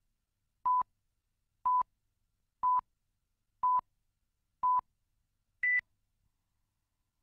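Countdown leader beeps: a short steady tone once a second, five times at the same pitch, then one last, higher beep.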